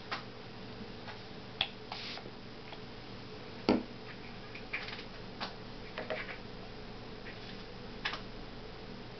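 Scattered light clicks and taps from handling makeup brushes and small pots of loose mineral eyeshadow, about eight in all, the sharpest a little under four seconds in, over a steady low hum.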